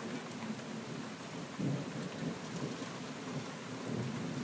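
Steady rain falling, with a low rumble of thunder building about a second and a half in.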